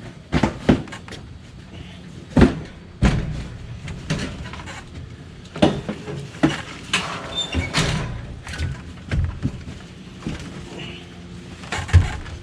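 Irregular knocks, thuds and clanks of heavy junk being handled and loaded, about a dozen sharp impacts spread unevenly, a few with a short metallic ring.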